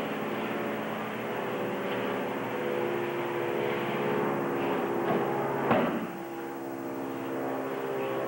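A steady droning hum runs throughout, with a few thuds of bodies falling onto the training mat during aikido throws. The loudest thud comes about two-thirds of the way in.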